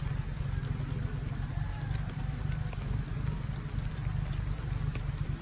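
Wind buffeting the microphone: a steady, low, fluttering rumble.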